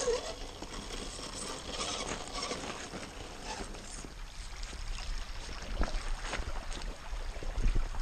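Footsteps crunching on the gravel and stones of a creek bank, with leafy branches rustling against the person carrying the camera, a heavier step now and then.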